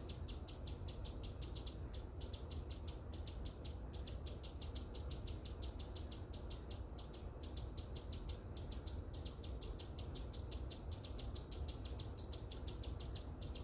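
Hummingbird giving rapid, very high-pitched chips, about five a second, in runs broken by brief pauses.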